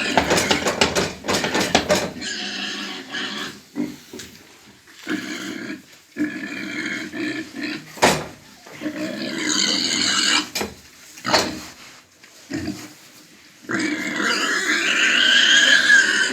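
Pigs in a pen making grunts and high calls in irregular bursts, with one short sharp sound about eight seconds in. The owner says these pigs have begun coughing, which he takes for a sign of illness in the herd.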